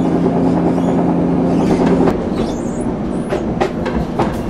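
Passenger train heard from on board: a steady low hum that stops about two seconds in, a brief high wheel squeal, then wheels clicking over rail joints several times near the end.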